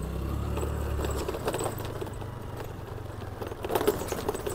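Low, steady engine hum of a motor scooter, fading somewhat after the first second, with short scuffing and rustling sounds about one and a half seconds and four seconds in.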